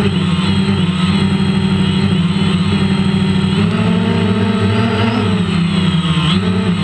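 Drone's electric motors and propellers buzzing steadily in flight, the pitch wavering up and down in the second half as the motor speeds change.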